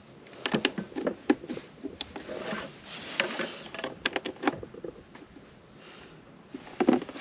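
Clicks, knocks and plastic taps of hands handling a portable power station, plugging a cable into its front sockets and setting small objects against its case, with a louder cluster of knocks near the end.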